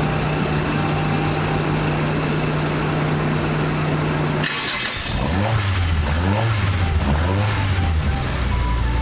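Toyota AE86 Sprinter Trueno's 4A-GE four-cylinder engine running, blipped up and back down about three times around the middle, then settling to a steady idle. A steady hum fills the first half and cuts off abruptly, with a hiss coming in at the same moment.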